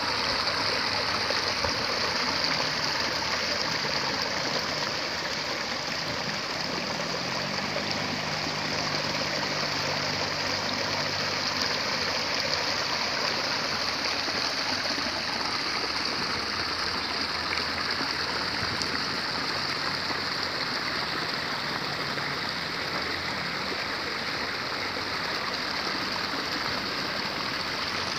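Water running steadily through an irrigation channel in the rice paddies, an even rushing with no breaks. A faint low hum sits underneath in the middle.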